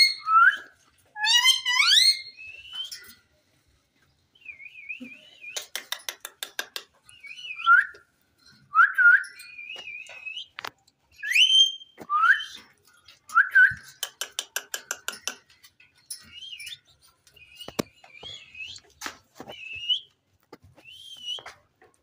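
Male rose-ringed (Indian ringneck) parakeet whistling and chattering: a string of short whistled notes that glide up and down, some wavering, with two runs of rapid clicking in between.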